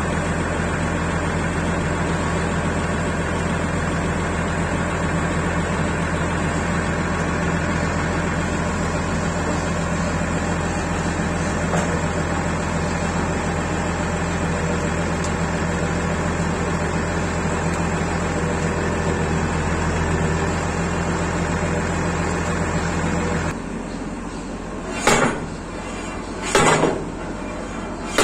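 A machine runs steadily at constant speed with an even low hum until about 23 seconds in, when it stops. Three sharp metallic knocks follow.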